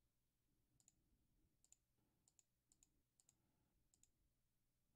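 Near silence, broken by about six faint computer-mouse clicks, each a quick press-and-release pair, spaced unevenly about half a second to a second apart.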